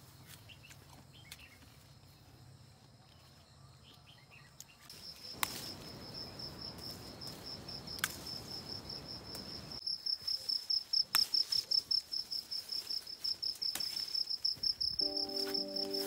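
An insect trilling in a high, fast-pulsing tone, starting about a third of the way in and carrying on. Background music comes in near the end.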